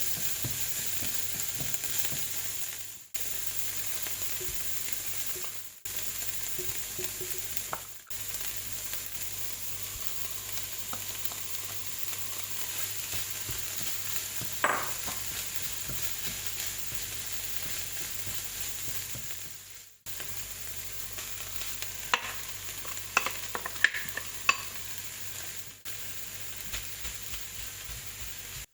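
Fried rice sizzling as it is stir-fried in a pan: a steady frying hiss with a few sharper clicks, and several brief breaks in the sound.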